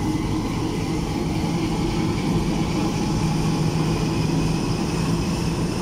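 Diesel engine of a harbour workboat running close alongside, a steady low hum, over the churn of its propeller wash.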